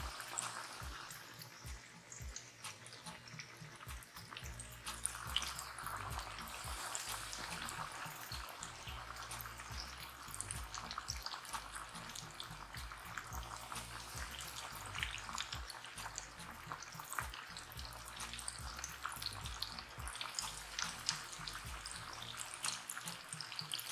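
Flour-coated chicken wings frying in a pot of hot oil: a steady crackling sizzle.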